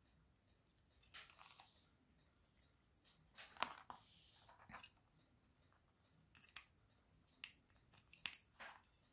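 Faint, scattered clicks and brief light scraping from small tools and parts being handled during electronics repair work. The sharpest click comes about three and a half seconds in, and a cluster of clicks comes near the end.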